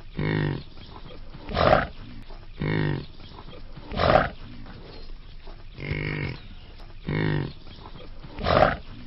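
An animal calling repeatedly: about seven short calls, each under a second, alternating between clearly pitched calls and breathier, harsher ones.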